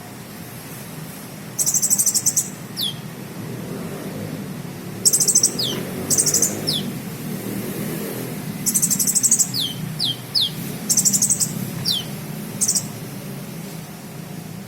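Sunbird (the Indonesian 'kolibri') singing a song filled with cricket-sound mimicry: six short, rapid, high-pitched trills like a cricket's chirp, most followed by a quick falling whistle, over a steady low background hum.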